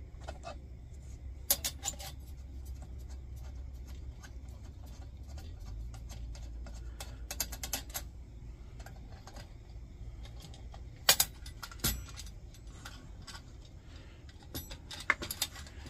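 Scattered light metallic clicks and clinks of an open-end wrench on the brass generator nut and fittings of a Coleman 508 camp stove as the nut is loosened and taken off, over a low steady hum.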